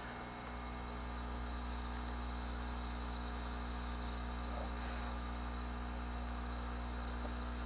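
Steady electrical hum with a hiss over it, while the iron is held on the pads; a low drone underneath grows louder about half a second in.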